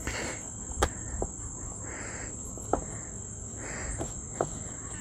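A steady, high-pitched chorus of insects, with a few light knocks and soft rubbing as hands press dough flat on a wooden cutting board.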